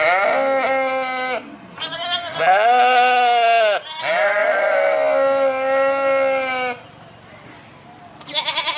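Sheep bleating, a run of four or five long, wavering calls one after another, then a short, higher-pitched bleat near the end.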